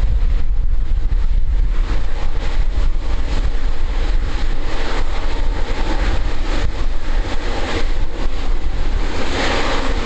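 Airbus A350-1000's Rolls-Royce Trent XWB-97 jet engines rumbling as the airliner lands, with the jet noise swelling near the end. A heavy, uneven low rumble sits under it, likely wind buffeting the microphone.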